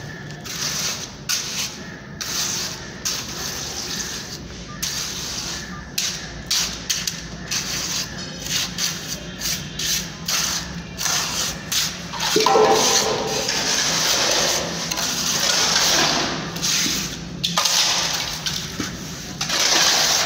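Wet cement plaster being rubbed and scraped onto the brick walls of a small sewer pit by hand, in short, irregular strokes.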